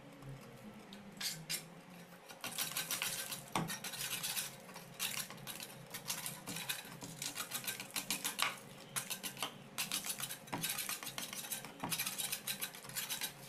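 A small metal blade scraping and chipping hardened cement off the edge of a cast concrete weight plate, in rough, irregular strokes with a few sharp knocks.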